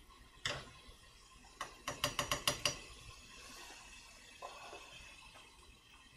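A metal spoon stirring egg mixture in an earthenware ttukbaegi pot and clicking against the pot: a single click, then a quick run of about seven clicks in about a second, and one softer knock later. The eggs are being stirred as they begin to heat and set.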